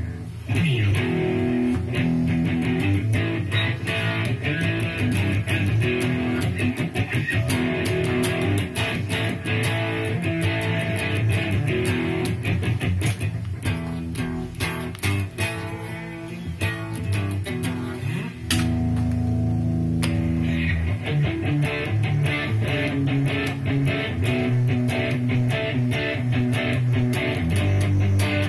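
Electric guitar played through a Line 6 POD HD500x multi-effects processor: a riff of quickly picked notes, with a low held note about two-thirds of the way in before the picking resumes.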